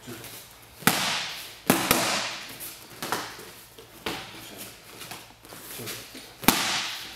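Fairtex boxing gloves punching Top King focus mitts: sharp slaps at irregular intervals, with a quick double strike near two seconds and a hard single hit near the end. Each slap is followed by a short ringing echo.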